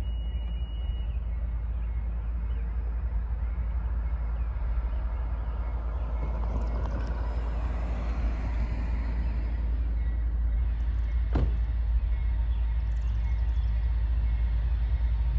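A car passing along the street, its tyre and engine noise swelling and fading around the middle, over a steady low rumble. One sharp knock comes about eleven seconds in.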